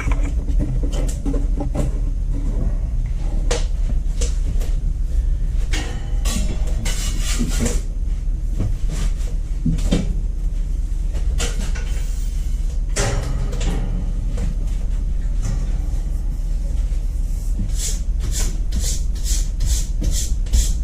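Steady low rumble with scattered knocks and clatter, as of trays and utensils being handled. Near the end a fast, even ticking starts, about three to four ticks a second.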